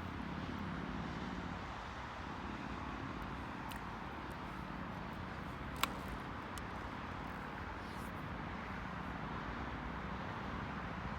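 Steady ambient background noise with a low rumble, broken by one sharp click a little past halfway and a few faint ticks.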